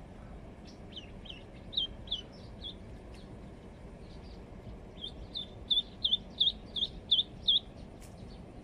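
Live duckling used as snakehead bait peeping: short high chirps, a few scattered ones in the first three seconds, then a faster run of louder peeps, about three a second, from about five seconds in.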